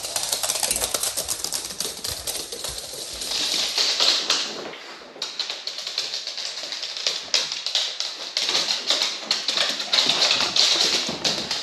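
Pugs' claws clicking rapidly on a laminate floor as the dogs run, in rushes that grow louder and fade.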